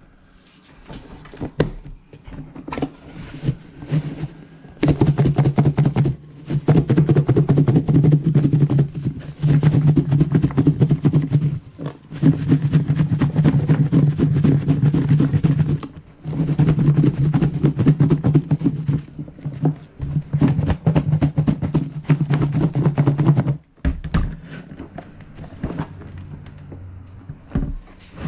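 Okra pieces and panko crumbs being shaken in a closed plastic container to coat them. There are about five loud bursts of rattling, each a few seconds long with short breaks between them. Lighter knocks and handling thunks on the container come before and after.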